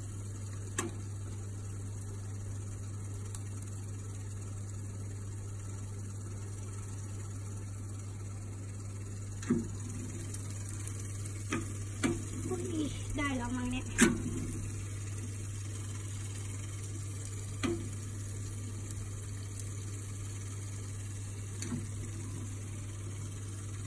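Electric salamander grill running with a steady low hum and hiss while cheese on potato slices melts under its heat. A few faint clicks and knocks come through, the sharpest about fourteen seconds in.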